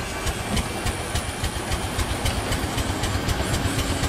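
A working model oil-well pumpjack running, its drive and crank mechanism making a steady, fast run of even knocks, several a second.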